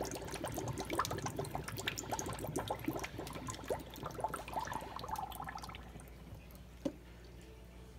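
Sink drain gurgling as the last water, chilled by dry ice, runs out, with a quick patter of small pops and bubbles. It tails off about six seconds in, and a single sharp click follows near the end.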